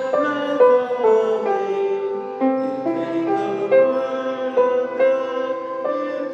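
Instrumental hymn music played on a keyboard instrument: a melody over chords, the notes changing about every half second.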